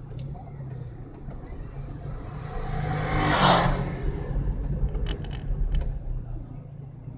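A vehicle passes close by: its road and engine noise swells to a peak about three and a half seconds in and then fades, over the steady low running of the vehicle carrying the camera. A few sharp clicks come shortly after.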